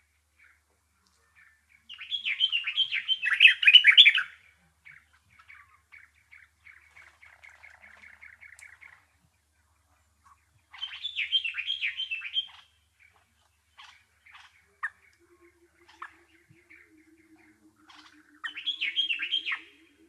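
A songbird singing in loud bursts of fast, scratchy chattering notes, three times, with a quieter rapid trill between the first two bursts. A low pulsing buzz joins in near the end.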